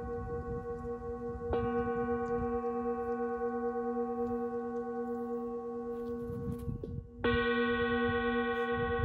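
Metal singing bowl held in the hand and struck twice, about a second and a half in and again near the end. Each strike brings a long ringing tone with several clear overtones, and the ringing is briefly damped just before the second strike.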